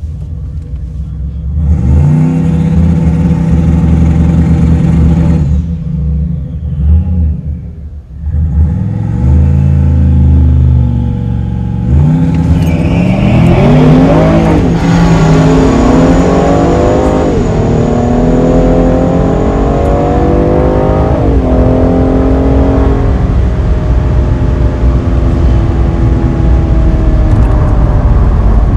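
Cadillac CTS VSport's twin-turbo V6 held at steady raised revs twice on the drag-strip starting line, then launched at full throttle. The revs climb and drop back at three automatic upshifts. Near the end the driver lifts off and the car rolls on at about 80 mph with road and wind noise.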